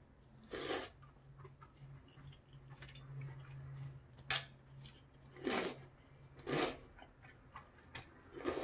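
Thick udon noodles being slurped from hot broth: several short, loud slurps, with gaps between them.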